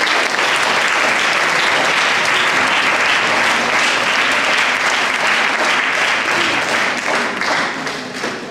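Audience applauding, a steady dense clapping that starts to die down near the end.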